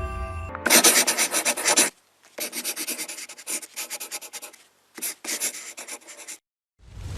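A rapid series of rough rubbing strokes, about eight to ten a second, in three bursts separated by silence, followed near the end by a loud whoosh.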